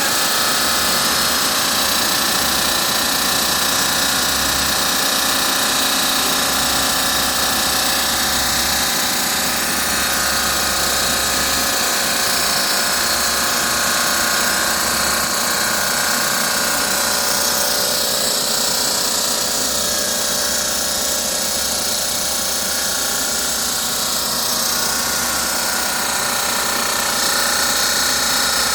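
Diamond saw blade cutting marble: a steady high whine over a continuous grinding hiss, with no break.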